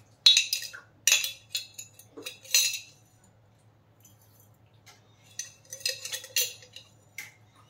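A metal spoon clinking and scraping against a glass jar and a stainless steel mixer-grinder jar as fennel seeds are scooped out and tipped in. There are several sharp clinks with short rattles of seeds in the first few seconds, a lull, then a second cluster of clinks.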